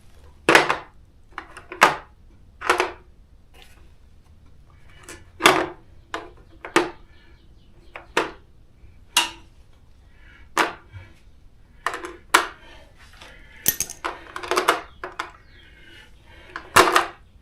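Metal sockets from a socket set clinking and clacking as they are picked out and handled, in sharp irregular clinks about once a second, some in quick pairs.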